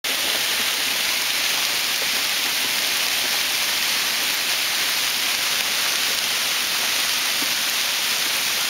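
Heavy hail falling and striking the ground and steps, a dense, steady hiss that does not let up.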